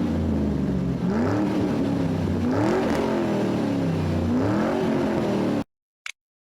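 An engine revved up and let back down about four times, then cut off suddenly.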